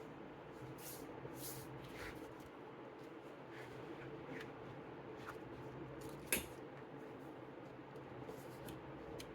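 Faint paper handling: soft rustles and flicks as a lift-the-flap book's pages and flaps are handled, with one sharper click about six seconds in, over a low steady hum.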